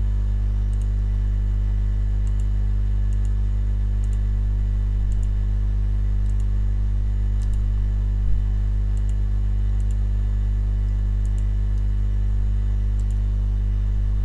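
Steady low electrical hum with a buzzy stack of overtones. Faint computer mouse clicks sound over it, in quick press-and-release pairs about once a second, while parts are placed and wired in the circuit simulator.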